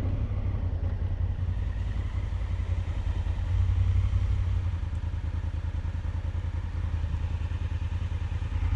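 Honda CRF1000L Africa Twin's parallel-twin engine running under way, a steady low pulsing that grows a little louder about three and a half seconds in, then eases back.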